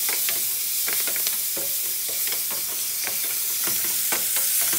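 Chopped tomatoes, onions and peppers sizzling in hot oil in a stainless steel frying pan, with many short sharp pops and clicks through the hiss. The oil is still hot from frying fish.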